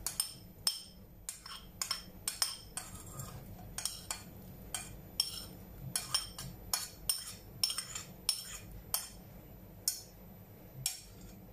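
Metal spoon clinking against a ceramic plate as corn kernels are scraped off it into a pan: a string of sharp, irregular clinks, roughly two a second, stopping shortly before the end.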